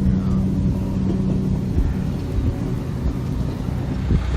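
An engine running steadily at low speed, a low rumble, with a single short knock near the end.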